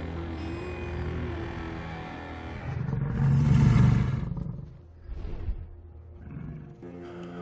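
A wolf's deep growl about three seconds in, lasting over a second, over low sustained film score.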